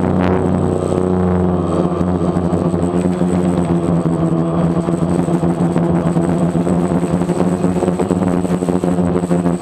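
DJI Phantom quadcopter's motors and propellers running steadily in flight, a constant buzzing whine with a slight shift in pitch now and then.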